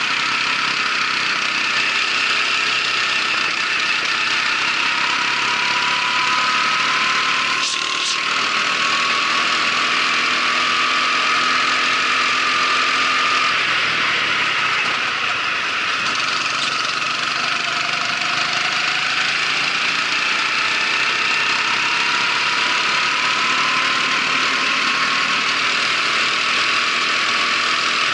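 Racing kart engine running hard, heard from on board: its pitch climbs steadily as the kart accelerates, drops around halfway as it slows for a corner, then climbs again. A brief knock sounds about a quarter of the way in.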